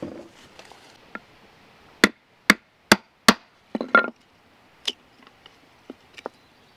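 Wood being split into small square peg blanks with a series of sharp wooden strikes: four knocks about half a second apart, then a quick cluster and a few lighter taps.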